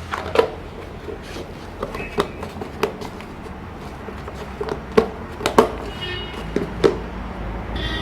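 Scattered knocks and clicks of handling, then a small computer cooling fan starting up near the end with a steady whir as the homemade cooler is tested.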